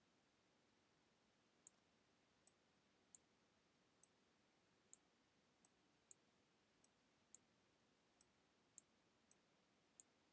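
Faint computer mouse clicks: about a dozen single, sharp clicks at irregular intervals, over a faint steady hiss.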